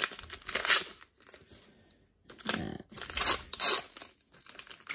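Foil wrapper of a 2021 Chronicles Draft Picks trading card pack being torn open and peeled back, with crinkling. There is a short spell of tearing in the first second and a longer one from about two and a half seconds in.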